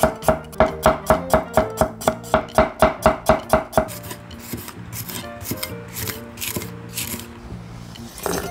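A broad kitchen knife slicing garlic cloves on an end-grain wooden cutting board, in quick even chops about four a second. From about four seconds in come softer, sparser cuts through green chili peppers, and there is a single louder knock near the end.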